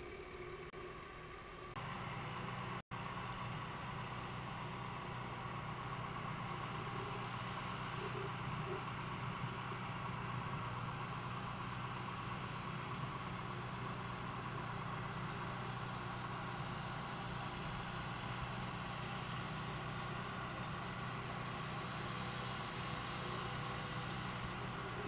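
Farm tractor engine running steadily as it works along the crop rows, a constant low drone. It gets louder about two seconds in and cuts out for an instant just before three seconds.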